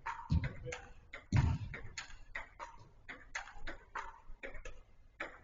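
Five-a-side football on an indoor artificial-turf pitch: two heavier thuds of the ball being struck in the first second and a half, then a scattered string of lighter taps and knocks from the ball and players' feet.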